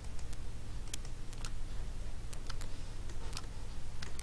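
Irregular sharp clicks of a computer mouse and keyboard being worked, over a steady low hum.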